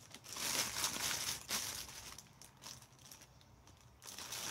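Clear plastic bag crinkling as the 6.5-inch car speaker wrapped in it is handled. The rustling comes in bursts for the first couple of seconds, dies down, then picks up again near the end.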